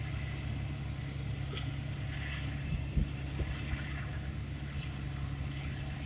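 A diesel engine idles steadily as a low hum, with a couple of light knocks about three seconds in.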